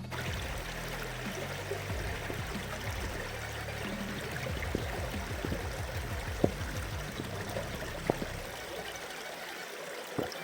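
Calm river running steadily with an even rush of flowing water, and a couple of sharp clicks about six and eight seconds in.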